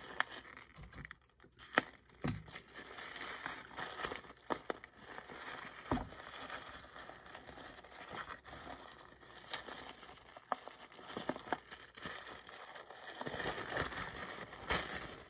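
Tissue paper rustling and crinkling as a wrapped gift package is unwrapped by hand, with scattered sharp crackles; it grows louder near the end.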